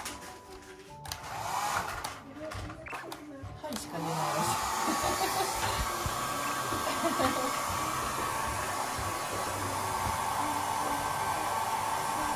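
Hand-held hair dryer blowing a toddler's hair dry. It cuts out and comes back a few times in the first few seconds, then runs steadily with a thin, even whine from about four seconds in.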